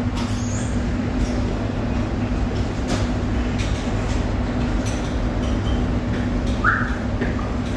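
Steady mechanical drone with a constant low hum running underneath, from machinery running in the room. A few faint clicks, and a short high tone about two-thirds of the way through.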